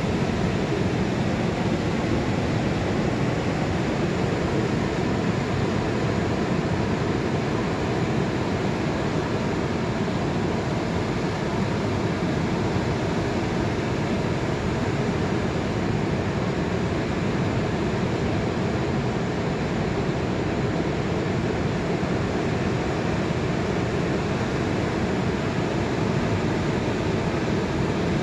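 Ocean surf breaking and washing up a sandy beach: a steady, even rush of waves without distinct single breakers.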